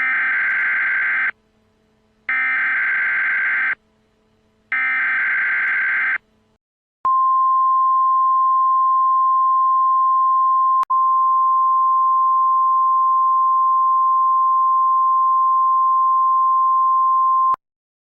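Emergency Alert System SAME header: three identical bursts of buzzy, screechy digital data, each about a second and a half long with short gaps between them. These are followed by a steady single-pitch attention tone of the NOAA Weather Radio kind. The tone holds for about ten seconds, with a brief click about four seconds in, and then cuts off abruptly.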